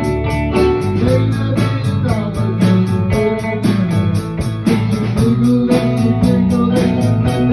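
Instrumental passage of a blues-rock song between sung lines: guitar playing over bass with a steady beat.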